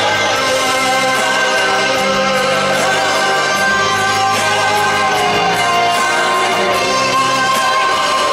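Live rock band playing an instrumental passage led by a lap steel guitar solo with sliding notes. One note glides down about five seconds in, over held low bass notes.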